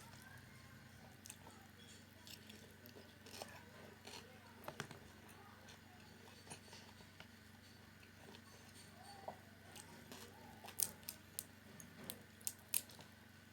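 A person chewing and crunching food close to the microphone, with scattered sharp clicks that come thicker and louder in the last few seconds.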